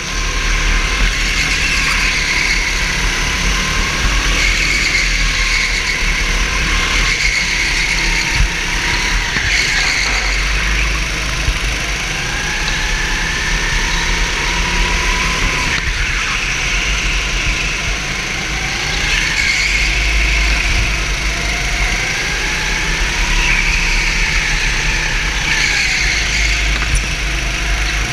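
Go-kart engine heard close up from onboard, running hard throughout, its pitch rising and falling over and over as the kart speeds up on the straights and slows for the corners.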